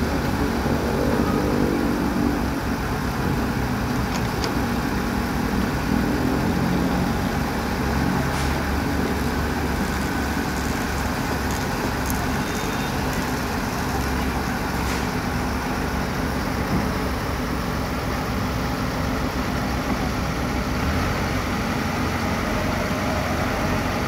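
Diesel engine of a self-loading concrete mixer truck running steadily while its drum discharges into a trailer concrete pump's hopper; the engine's pitch shifts a little near the start and again a few seconds later, with a few faint clicks.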